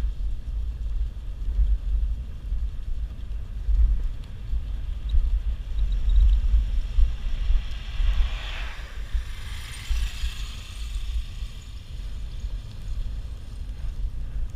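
Steady low rumble of wind on the microphone while cycling. A vehicle passes by, swelling about eight seconds in and fading by about eleven seconds.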